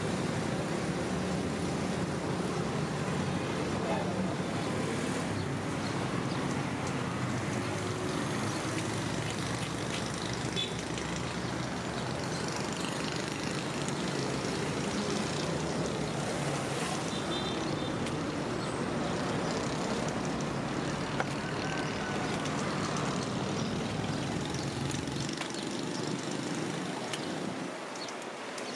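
Steady street traffic of cars and motorcycles, with indistinct voices in the background; the low rumble drops away near the end.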